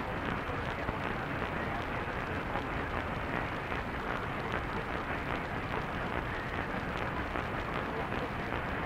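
Steady radio static hiss, dull and even, with no tones or voice.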